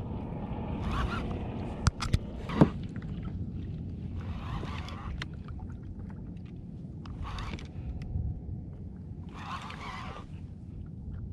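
Water slapping and washing against a fishing kayak's hull in surges every few seconds, over a steady rumble of wind and sea, with a few sharp knocks about two seconds in.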